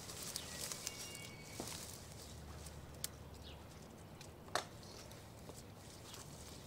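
Faint rustling and crackling of honeysuckle leaves and stems as a capuchin monkey climbs through the vine and pulls at the blossoms, with a couple of sharper snaps midway.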